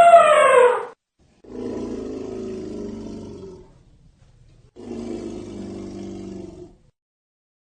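Elephant calls: a loud, high trumpet that falls in pitch and cuts off about a second in, followed by two lower, quieter roaring calls of about two seconds each.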